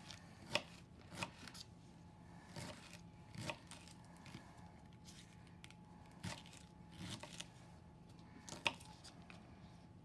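Kitchen knife chopping celery stalks on a cutting mat: separate, irregularly spaced knife strikes, about one every second.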